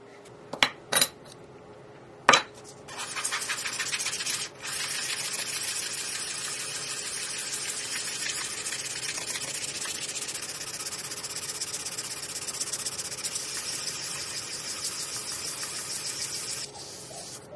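Three sharp clicks, then a steady scratchy hiss as a silver dog-tag blank is rubbed flat by hand on an abrasive sheet, with a short break about four and a half seconds in and a stop shortly before the end.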